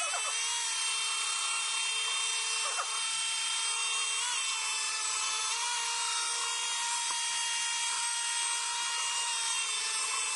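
Stick blender motor running steadily with a whine while blending soap batter in a stainless steel pot, its pitch rising slightly as it comes up to speed at the start. It is mixing the oils and lye solution up to a light trace.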